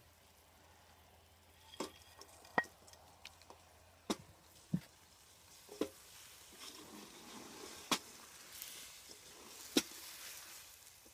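Slotted wooden spoon stirring crispy battered beef strips and carrots through hot sauce in a steel wok, with sharp knocks of the spoon against the wok every second or so. A light sizzle grows from about halfway as the food heats through.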